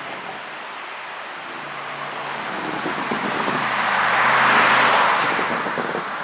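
A car passing by: road and tyre noise with a faint low engine tone, swelling to a peak about four and a half seconds in, then fading away.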